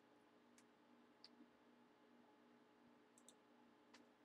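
Near silence with a few faint, separate clicks of a computer mouse, over a faint low steady hum.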